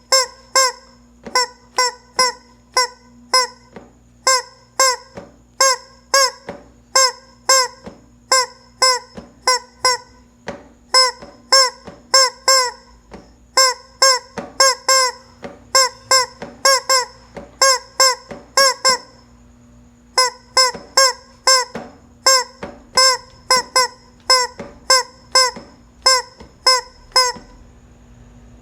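A chicken calling loudly over and over, short nasal honking squawks about two a second, with a brief break about twenty seconds in.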